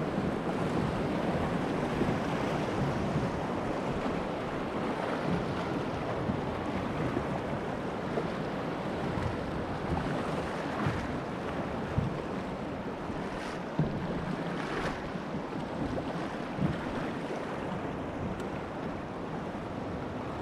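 River rapids rushing and splashing around a kayak, a steady wash of water noise with wind buffeting the microphone. A few short knocks come in the middle and later part.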